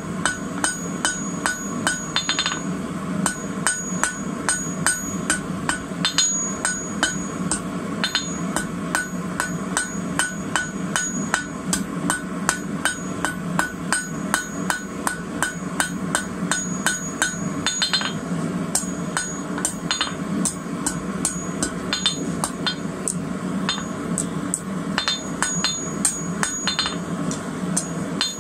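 Hand hammer striking red-hot steel rebar on an anvil at a steady pace of about three blows a second, drawing the bar down into a long taper. A few of the blows ring higher and brighter.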